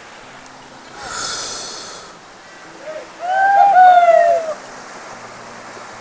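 Forest stream and small waterfall rushing steadily over rocks. About a second in comes a brief rush of noise, and a little past the middle a loud call of several quick arching notes lasting about a second and a half.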